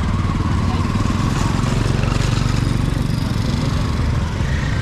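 A motor vehicle engine running steadily close by, with voices in the background.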